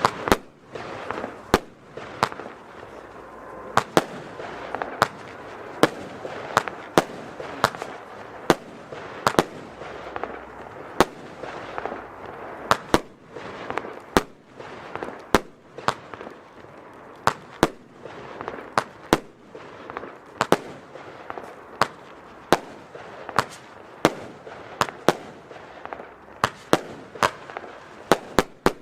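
Weco Bulletproof F2 firework battery firing: a long run of sharp bangs, irregularly about one or two a second, over a steady hiss between them.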